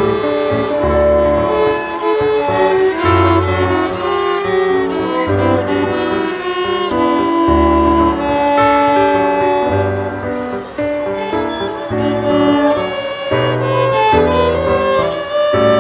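Violin playing a melody over piano accompaniment, with sustained bowed notes over a changing bass line.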